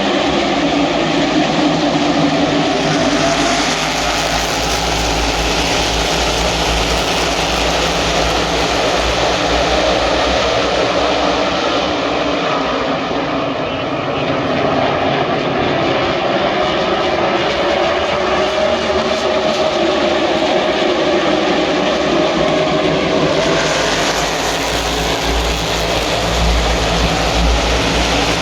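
NASCAR Cup stock cars' V8 engines racing around the track in a loud, continuous drone, rising and falling slightly as the field circulates.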